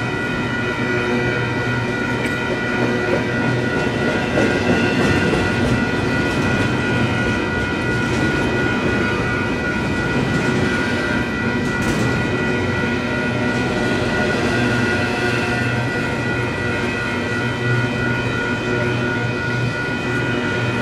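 A Union Pacific freight train of empty intermodal flatcars rolling steadily through a grade crossing, with a constant rumble of wheels on rail. Over it, the crossing's electronic warning bells ring without a break.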